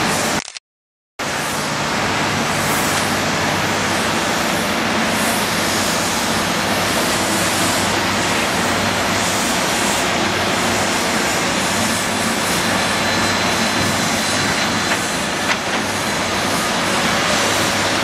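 Komatsu PC228 hydraulic excavator's diesel engine and hydraulics running steadily as the machine works. The sound cuts out completely for a moment shortly after the start, then resumes.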